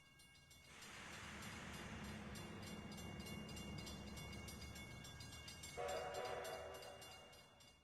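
A train running with a low rumble and hiss, and its horn sounding a chord from about six seconds in, fading near the end.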